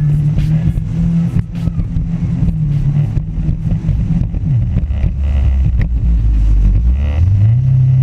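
Jet ski engine running at speed; its pitch drops as the throttle eases off about halfway through, then climbs back as it revs up again near the end. Sharp splashes of spray and water slapping the hull come and go throughout.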